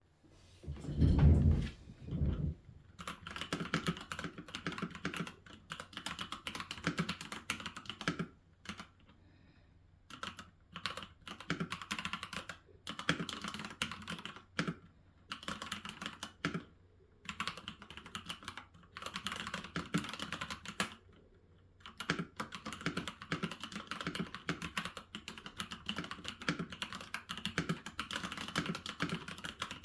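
Typing on a computer keyboard: runs of rapid key clicks broken by short pauses, with a couple of low thuds in the first few seconds.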